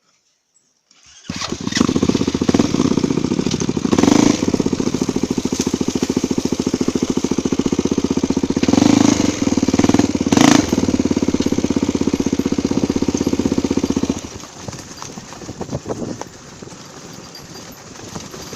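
Single-cylinder four-stroke trail motorcycle engine running, coming in suddenly about a second in with a fast, even firing beat and revving up in short surges a few times. About fourteen seconds in it drops away to a much quieter, rougher sound.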